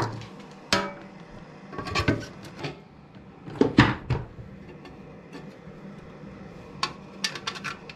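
Tools being handled on a wooden workbench: scattered knocks and clatters, the loudest about four seconds in as a power drill is laid down on the bench, then a quick run of light clicks near the end.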